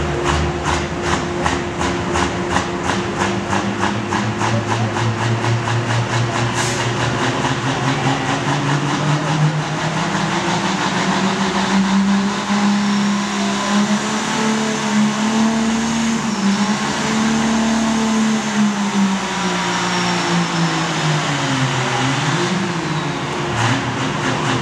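1996 Dodge Ram's Cummins 5.9 inline-six turbo diesel running hard under load on a pull: the engine pitch climbs, holds high, dips sharply about 22 seconds in and climbs again. A rapid even pulsing runs through the first several seconds.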